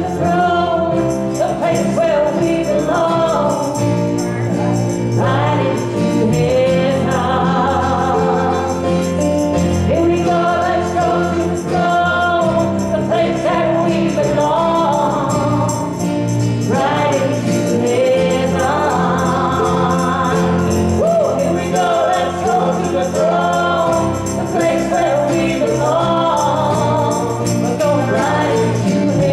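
A small group of singers performing a contemporary gospel worship song in harmony over amplified instrumental backing with a steady beat.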